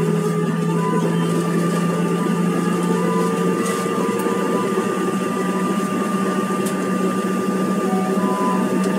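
Cabin noise of a Bombardier CRJ1000 jet taxiing: a steady engine drone with several steady whining tones from its rear-mounted turbofans.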